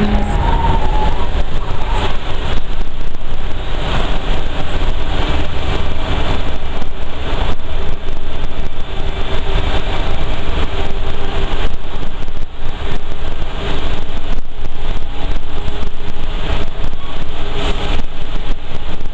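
Loud, steady rumble of a vehicle's engine and tyres driving through a road tunnel, with a faint steady hum underneath.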